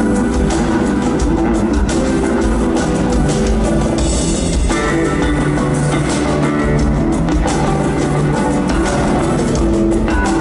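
Live band music played over a concert PA: an acoustic-electric guitar and an electric bass over a drum kit, at a steady rock beat.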